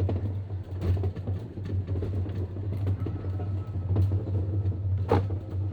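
Electric rack-railway train running uphill: a steady low hum with scattered clicks and knocks from the running gear on the track, one louder knock about five seconds in.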